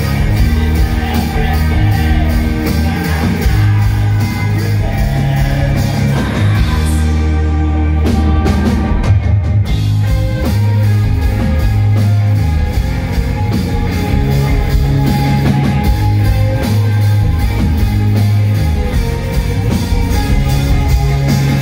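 Rock band playing live, loud: drum kit, distorted electric guitars and bass guitar.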